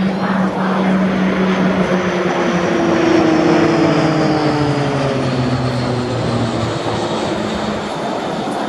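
Propeller-driven aircraft flying past, its engine note sliding down in pitch as it goes by, loudest about three seconds in.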